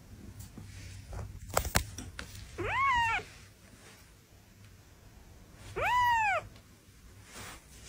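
Young kitten mewing twice, two high calls a few seconds apart, each rising then falling in pitch. A couple of sharp clicks come just before the first mew.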